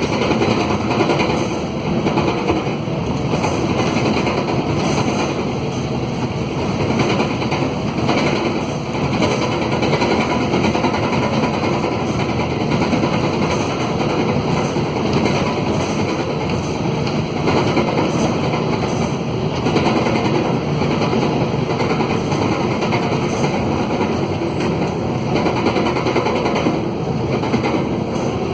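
Mercedes-Benz OM904LA four-cylinder turbodiesel of a midibus running under way, with a loud, rapid rattling blat from a broken exhaust.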